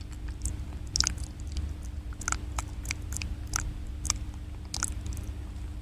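ASMR mouth sounds close to the microphone: about a dozen short, wet clicks and smacks of the lips and tongue at an irregular pace.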